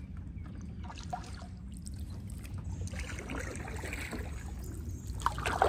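A paddled 14-foot metal john boat on the water: a steady low rumble with a few faint knocks, and sharper sounds near the end.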